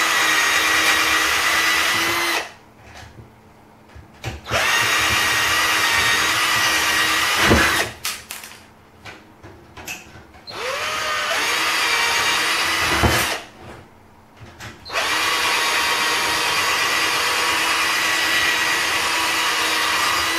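Electric drill drilling out steel rivets in a PC case's drive-bay frame, with a steady whine. It runs in four bursts of a few seconds each, with short pauses between them.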